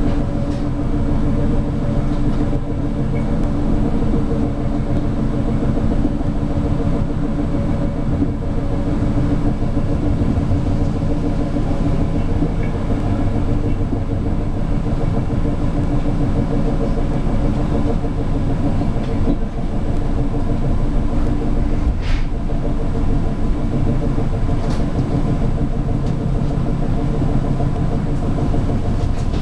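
Steady rumble of an Intercity passenger train heard from inside a carriage as it runs along the track, with a steady hum and a few faint clicks.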